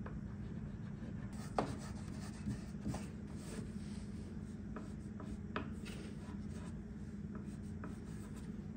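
Mohawk Blendal touch-up stick scratching and rubbing across the dresser's wood veneer as worn spots are coloured in, starting about a second in, with a few sharp taps of the pen tip on the wood. A steady low hum runs underneath.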